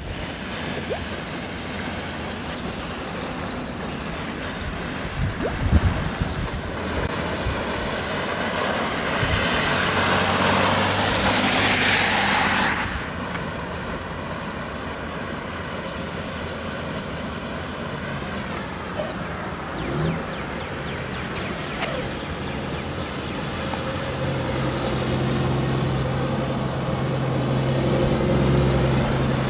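Vehicles driving through a flooded street, tyres hissing through standing water and throwing spray. About ten seconds in, a loud splashing hiss peaks as a vehicle passes. Near the end a semi truck's engine grows louder as it ploughs through the water toward the listener.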